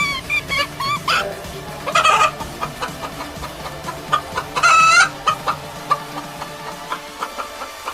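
Chickens clucking in quick, short calls, with two louder, longer calls about two seconds and about five seconds in.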